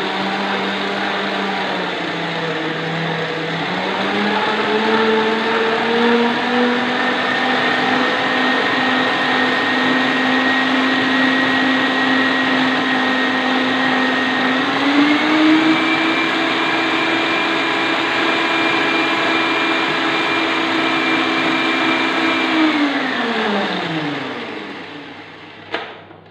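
Electric stand mixer running with its whisk, beating chilled pastry cream smooth. Its motor whine steps up in speed twice, then winds down and stops near the end, followed by two short clicks.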